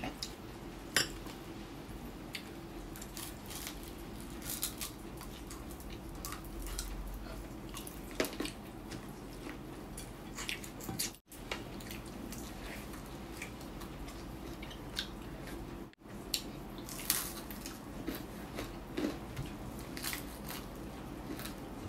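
Close-mic eating sounds: crunching and chewing of crisp fried chicken, with wet mouth smacks and finger-licking, as scattered short clicks and crackles over a faint steady hum.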